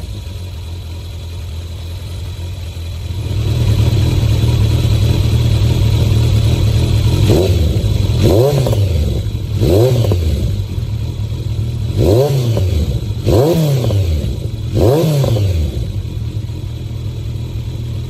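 Kawasaki ZRX1200R inline-four running through an aftermarket Yoshimura / Tsukigi Racing exhaust. It idles, the idle picks up a few seconds in, and then comes a series of six quick throttle blips, each revving up sharply and dropping straight back, before it settles to idle again.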